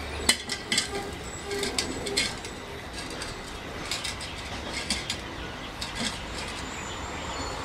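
A few short metallic clinks and scrapes as a 90-degree steel pipe bend is set and worked onto the top of a waste-oil burner.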